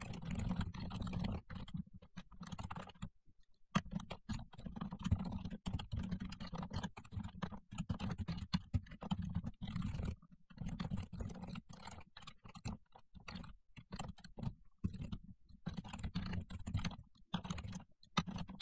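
Typing on a computer keyboard: quick runs of keystrokes with a few short pauses between them.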